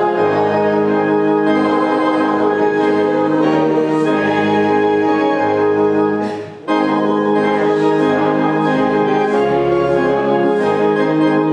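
Organ playing slow, sustained chords, with a brief pause between phrases about six and a half seconds in.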